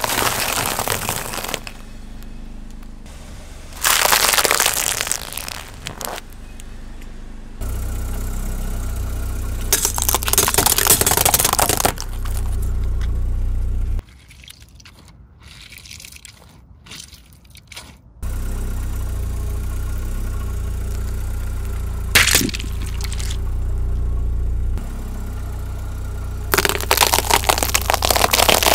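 A series of things crushed one after another under a slowly rolling car tyre, giving loud crunches and crackles, among them a packet of biscuits and a pile of peanuts in their shells. A low engine rumble runs between the crunches, with a quieter stretch of a few seconds about halfway through.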